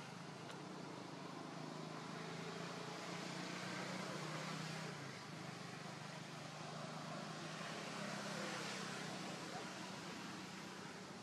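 Steady outdoor background noise: a low, even hum under a broad hiss, swelling slightly twice, with no distinct calls or knocks.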